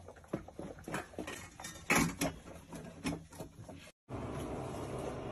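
A string of light clicks and knocks from pets eating at ceramic feeding bowls, the loudest about two seconds in. After about four seconds it cuts to steady room noise with a low hum.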